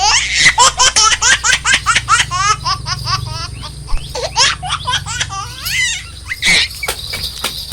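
High-pitched laughter in quick, rapid bursts, most intense for the first few seconds, then breaking into fewer, shorter fits of laughing.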